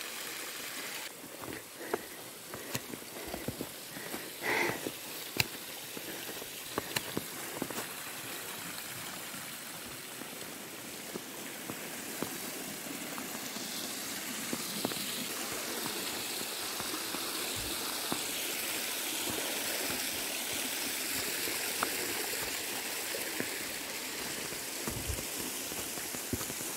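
A forest stream rushing steadily, growing louder in the second half. Footsteps crunch in snow now and then in the first few seconds.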